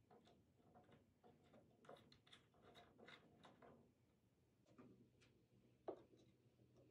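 Faint small metallic clicks and ticks of an axle nut being spun on by hand onto a skateboard truck axle against the wheel bearing, with one sharper click about six seconds in.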